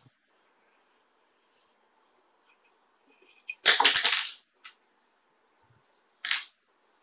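A short clatter of small hard objects knocked and set down on a tabletop about halfway through, and a brief second knock near the end, over faint chirping that repeats about twice a second.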